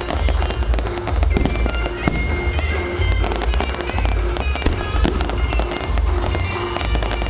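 Aerial fireworks going off in quick succession: many sharp crackling pops over repeated deep booms, with music playing along throughout.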